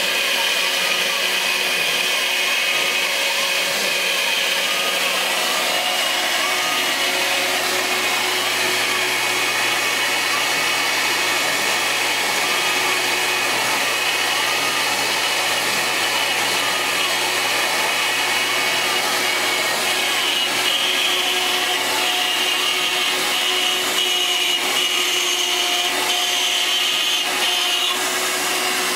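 Home-built CNC router's spindle running steadily while its bit cuts circles in an MDF sheet, a high whine over cutting noise, with a fainter tone from the axis motors rising and falling again and again as the gantry traces the curves.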